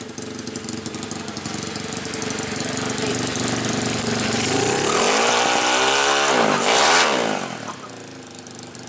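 Drag-race motorcycle engine idling at the start line, then revved up and let fall twice, the second blip sharper and loudest, before settling back to idle near the end.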